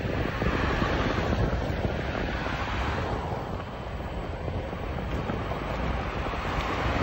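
Wind buffeting the microphone while riding along a street: a steady rushing noise with a dense low rumble.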